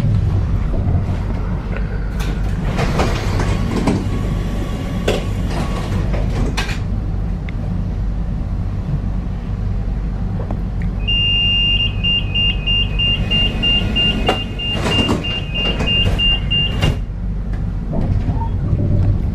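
Tram halting at a stop: its motor whine falls away as it comes to a standstill, with a steady low rumble underneath. The doors knock and slide open, then a high door warning beeps for about six seconds before the doors close. Near the end the motor whine rises again as the tram pulls away.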